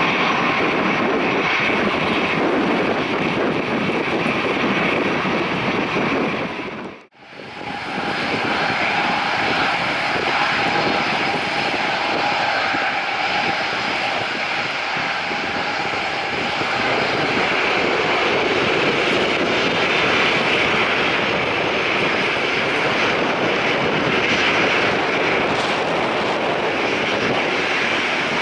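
Airliner jet engines running: first a landing jet rolling out on the runway, then, after a brief break in the sound about seven seconds in, a Boeing 737-800's CFM56-7B turbofans at taxi power. Both are a steady rush with a high whine.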